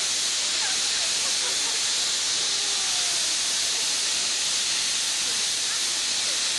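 Westrail's steam locomotive No. 90 blowing off steam: a loud, steady hiss with no let-up.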